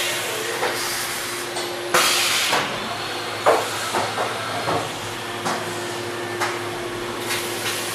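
Haas VF-3YT vertical machining center running: a steady hiss with a steady hum under it, and short clicks scattered through.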